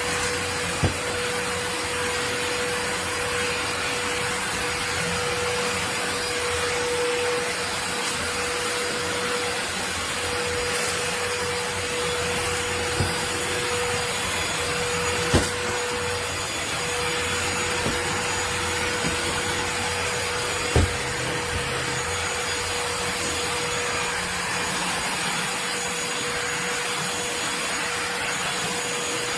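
Kenmore DS1020 16V cordless stick vacuum running steadily, a rushing noise with an even tone. A few sharp clicks are scattered through it.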